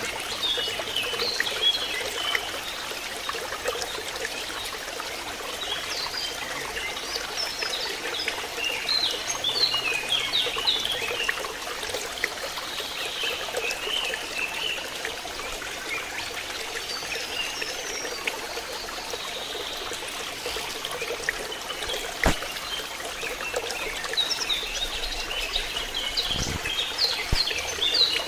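Water trickling steadily into a fish pond, with intermittent bird chirping. There is a single sharp click about 22 seconds in and a dull thump a few seconds later.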